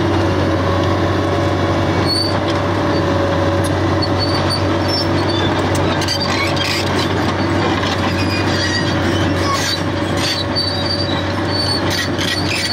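New Holland E385 crawler excavator running, its diesel engine giving a steady low hum under a held mid-pitched tone. High squeaks and metallic clicks come and go from about two seconds in, as steel tracks squeal and clank when the machine moves on its crawler tracks.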